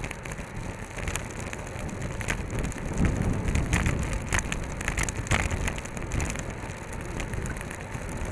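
Wind and road noise picked up by a handlebar-mounted camera riding inside a bunch of road racing bicycles: a steady rush full of irregular clicks and rattles, with heavier wind buffeting in the middle.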